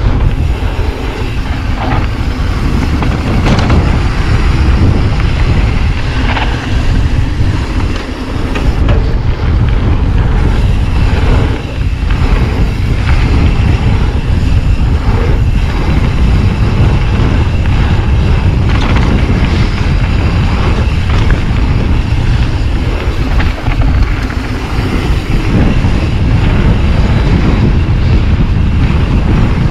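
Mountain bike riding a dirt trail: wind buffeting the action camera's microphone in a steady low rumble, with tyre noise and frequent clatters and knocks as the bike rattles over bumps.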